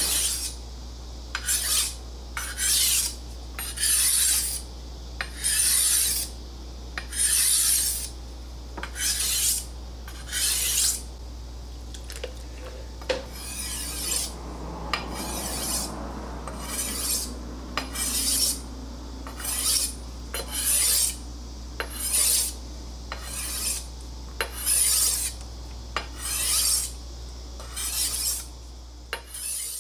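Steel chef's knife blade being stroked across a sharpening stone to sharpen its edge: a run of rasping scrapes, about one a second, with a short lull near the middle, over a steady low hum.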